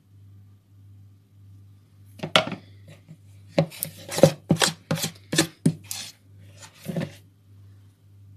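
Metal spoon knocking and scraping against a mixing bowl while scooping cake batter: a quick run of about eight sharp clinks and scrapes, starting about two seconds in and stopping about seven seconds in.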